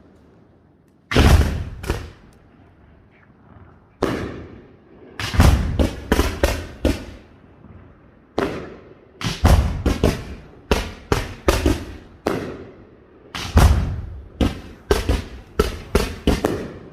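Pirotecnia Nadal-Martí aerial fireworks bursting in a castillo display: a few seconds in, loud sharp bangs start, first singly and then in rapid clusters of several, each with a brief echoing tail.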